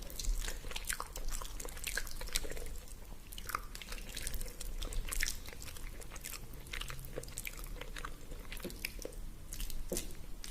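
A person eating close to the microphone: steady chewing with irregular crisp crunches and wet clicks of the mouth.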